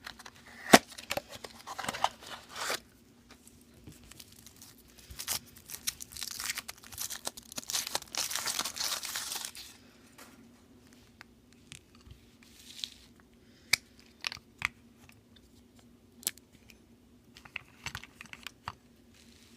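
Wrapper of a chocolate surprise egg being torn and crinkled off by hand, with a longer stretch of crinkling partway through, then scattered light clicks and taps as the egg is handled.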